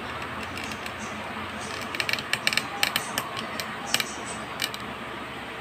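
A cat eating at a dish, its chewing and mouth sounds making a quick run of sharp clicks starting about two seconds in and lasting a couple of seconds, over a steady background hiss.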